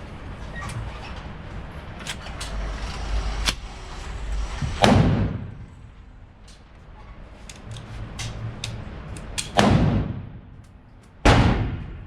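Three loud handgun shots, the first about five seconds in and the last two about a second and a half apart near the end, each ringing out briefly. Fainter sharp cracks sound in between.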